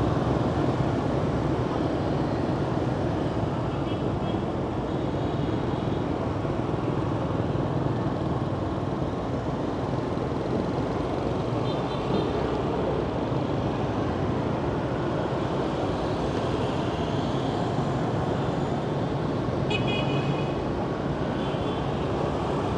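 Steady road noise of scooter and car traffic heard while riding through a city street, with short high horn beeps a few times: near the start, in the middle and near the end.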